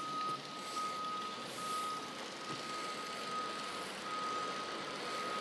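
Warning beeper of a Mototok electric towbarless aircraft tug, sounding while the tug moves the aircraft: one steady high tone in long beeps with short gaps between them, over a steady hiss.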